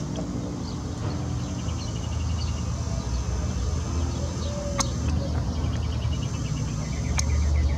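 Small birds chirping and trilling over a steady low rumble that grows louder near the end, with two sharp clicks partway through.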